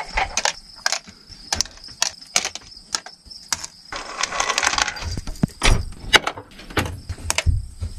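Loose metal screws clinking as they are dropped by hand into the plastic bins of a Milwaukee Packout organizer: a quick, uneven run of small clicks, with a burst of rattling a little past halfway as a handful is stirred through.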